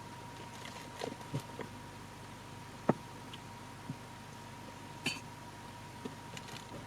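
Scattered light clicks, taps and clinks of small hard objects being handled, about eight in all and the sharpest about three seconds in, over a faint steady hiss with a thin steady high tone.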